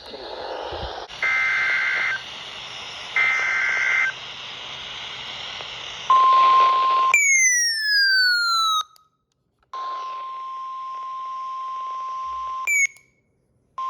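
NOAA Weather Radio Emergency Alert System alert over a hissy radio signal: two one-second bursts of the SAME digital header, a harsh two-tone data screech, then the steady 1050 Hz warning alarm tone, which breaks off and starts again. A falling electronic sweep comes between the tone segments, and a short chirp sounds near the end.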